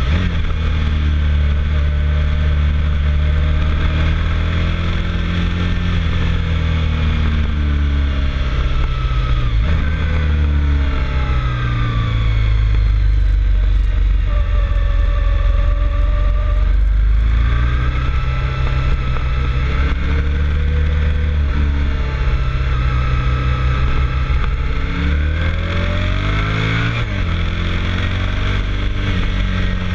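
Motorcycle engine running hard on a winding road, its pitch climbing through each gear and dropping back at the shifts, several times over.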